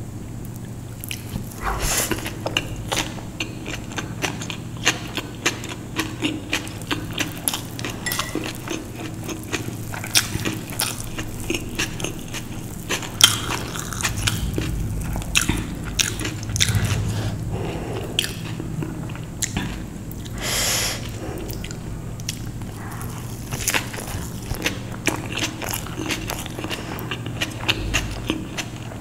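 A person biting and chewing dosa close to the microphone, with wet mouth smacks and many small crisp clicks throughout.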